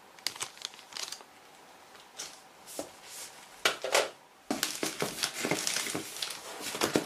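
Plastic bags and wrapping crinkling and rustling as packed accessories are handled and lifted out of the box. The first half has short scattered rustles; from about halfway through there is a busier, steadier stretch of crackling.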